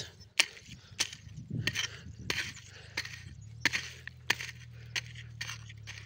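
Metal hoe blade chopping into dry, clumpy soil around onion plants, about one sharp strike every two-thirds of a second, loosening the earth at their bases. A low steady hum joins in about halfway.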